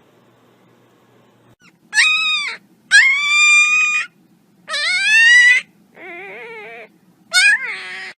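A pet dog whining in five high-pitched, drawn-out cries starting about two seconds in; the fourth is quieter and lower, with a wavering pitch.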